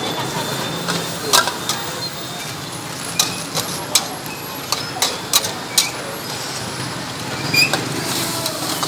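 Metal ladle striking and scraping a steel wok while stirring food in sauce: a series of sharp metallic clinks, about seven, spread irregularly over a steady background noise.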